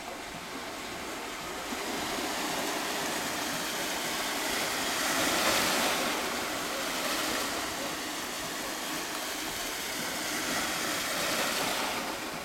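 Small sea waves washing and lapping at the water's edge: a steady wash that swells to its loudest about halfway through, then eases.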